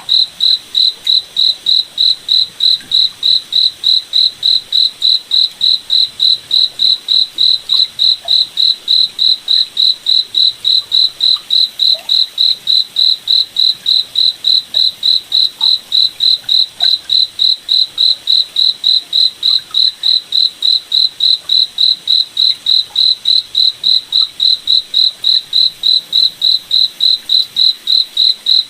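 A cricket chirping steadily: a single high-pitched chirp repeated evenly, about three times a second.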